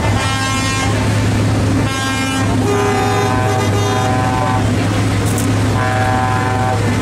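Truck air horns sounding in about four blasts of differing pitch, over the steady low drone of a running truck engine.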